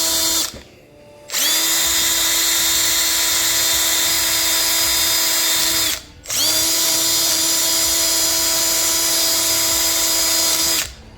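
Small power tool spinning a wire wheel against rusted steel body shims, scrubbing the rust off: a steady whine over a hiss of wire on metal. It stops about half a second in, spins back up, cuts out briefly about six seconds in, then runs again until near the end.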